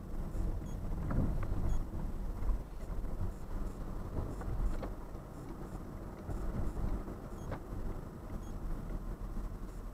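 Car driving, heard from inside the cabin through a dashcam microphone: a steady low rumble of engine and tyres on the road, with a few faint clicks and knocks.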